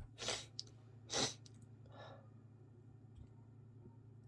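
A person with a congested head cold sneezing twice in quick succession, each sneeze a short sharp burst, followed about two seconds in by a softer breath.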